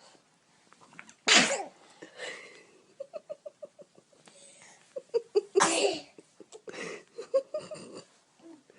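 Two sneezes from small children, one a little over a second in and a louder-looking one about five and a half seconds in, with a quick run of short breathy sounds between them.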